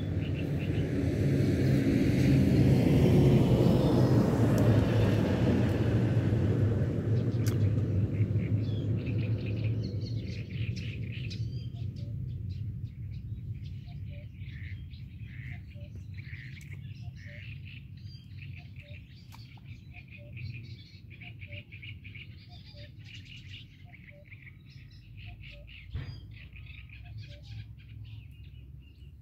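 Small birds singing in a quick run of short chirps from about ten seconds in, over a low steady rumble. Before that, a loud rushing noise swells and fades over the first several seconds.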